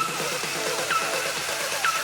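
Background electronic music with a steady beat and a falling synth sweep that repeats about once a second.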